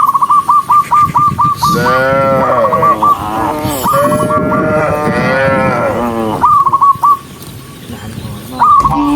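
Cattle mooing, several long moos overlapping one another, with a quick run of short high chirps at the start and again later on.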